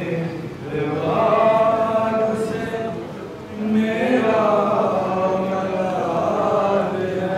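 Voices chanting a devotional song in long, slowly wavering held notes, easing off briefly about three and a half seconds in before the next phrase.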